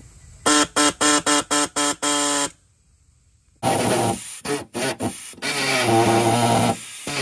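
Pneumatic reciprocating body saw triggered in seven quick blips, then after a short pause running steadily as it cuts through the truck's sheet-metal fender. Under load its pitch is lower, with a few brief stops in the cut.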